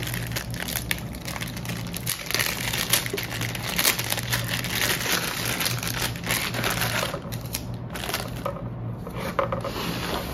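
Clear plastic packaging bag crinkling and rustling as a small speaker tweeter is pulled out of it and handled, a continuous crackle of small clicks over a low steady hum.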